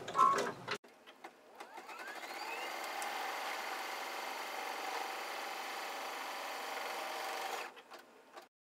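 Brother Dream Machine 2 embroidery machine stitching out a seam line in the hoop: the motor speeds up with a rising whine over about a second and a half, runs steadily for about five seconds, then stops, followed by a few faint clicks.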